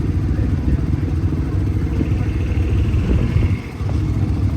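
Loud drag race car engine running with a choppy low rumble, dipping briefly about three and a half seconds in.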